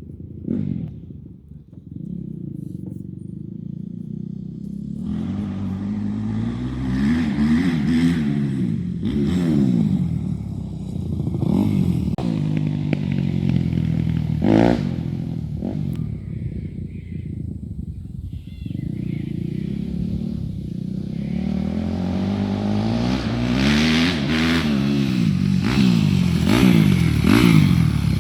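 Yamaha YZ250F four-stroke single-cylinder motocross bike being ridden, its engine revving up and dropping back again and again, with one sharp high rev about halfway through.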